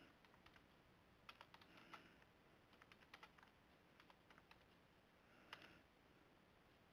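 Faint typing on a computer keyboard: scattered key clicks, with one louder key press about five and a half seconds in as the command is entered.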